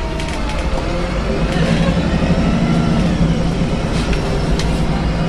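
A VDL SB200 single-deck bus heard from inside, with its engine running and road noise under it as a steady low drone that gets a little louder about a second and a half in. A couple of short sharp clicks come near the end.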